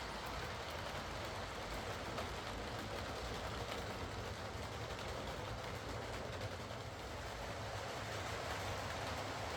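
Lima Class 37 OO gauge model diesel locomotive, fitted with a CD motor, running steadily along model railway track: a continuous motor hum with wheels rolling on the rails.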